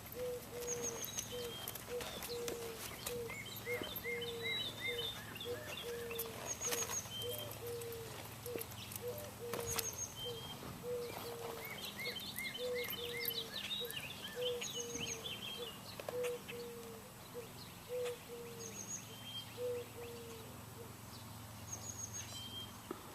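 Birds chirping and calling, clusters of quick high chirps and a short high call every few seconds, over a steady run of short low notes repeating about once or twice a second.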